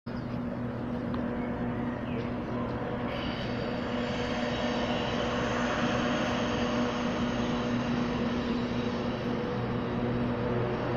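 Steady engine hum with a constant low drone, joined about three seconds in by higher steady whining tones.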